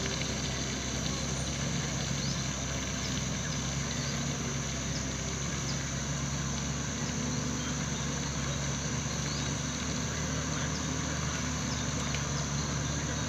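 Vehicle running steadily on the road, engine and road noise, with a steady high whine above it.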